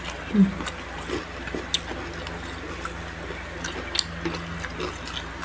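Close-up eating sounds: people chewing crispy fried food, with scattered sharp crunches and mouth clicks. A short low vocal sound comes about half a second in.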